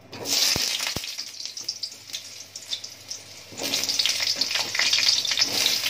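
Potato chunks sizzling as they go into hot mustard oil in a kadai, with two sharp clicks in the first second. The sizzle grows louder about three and a half seconds in.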